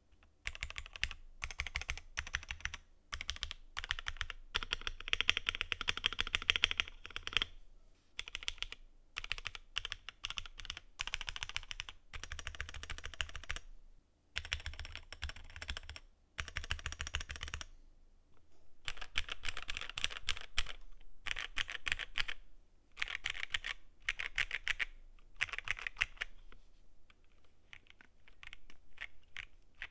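Typing on an Akko ACR 75 V2 mechanical keyboard with Akko CS Sakura light linear switches and tall MT3-profile keycaps, its stock stabilizers and PE foam left in. Fast runs of keystrokes come in bursts of a second or two between short pauses, and grow sparser near the end.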